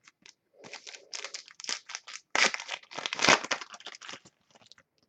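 A trading-card pack wrapper being torn open and crinkled by hand: a run of dry crackles that is loudest in the middle and dies away about four seconds in.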